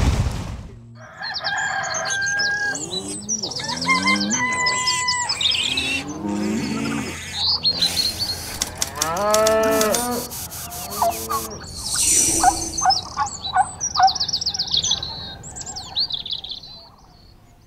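Savanna soundscape of cattle lowing amid many bird calls and chirps, with a run of arching moo-like calls about nine seconds in.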